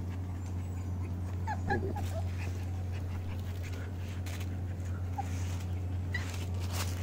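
Puppy whimpering in a few short, high squeaks, a cluster about a second and a half in and single ones near the end, over a steady low hum.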